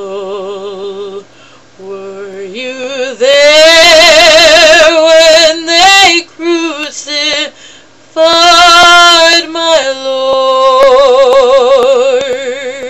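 A woman singing solo with a wide vibrato, in loud sustained phrases, holding one long final note through the last few seconds.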